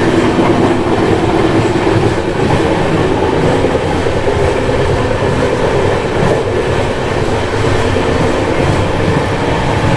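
A passenger train running at speed, heard from inside its coach beside an open door: a steady, loud noise of wheels on the track.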